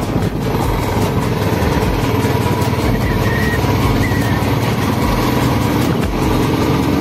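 Motorcycle engine running steadily while riding at road speed, under a constant rush of road and wind noise.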